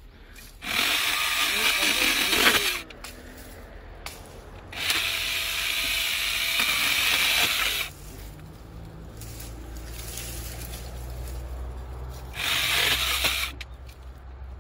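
Small power saw cutting through wood in three runs of a few seconds each, with a low hum between the cuts.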